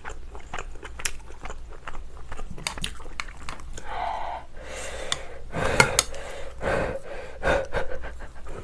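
Chopsticks clicking and scraping against a metal pot and a rice bowl as pork kimchi stew is served, with some wet chewing mixed in. The clicks are short and irregular, and they come thicker from about five seconds in.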